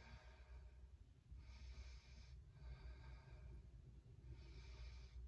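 A woman breathing faintly and slowly while holding side plank, about four breaths of a second or so each, over a steady low room hum.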